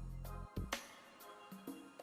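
Background music: a bass line with a few drum hits.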